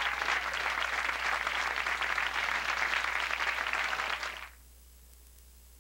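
Studio audience applauding, a dense steady clapping that cuts off abruptly about four and a half seconds in.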